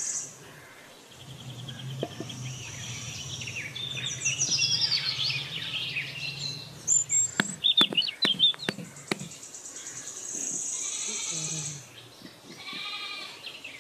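An upturned aluminium cake mould knocked several times against a plate to free the cake, about seven sharp raps in under two seconds near the middle. Birds chirp in the background.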